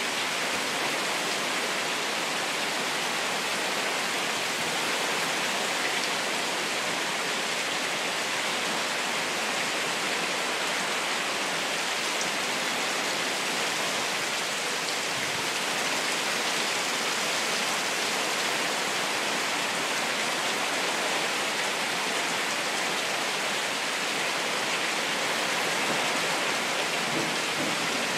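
Heavy rain falling in a steady, even hiss that neither builds nor eases.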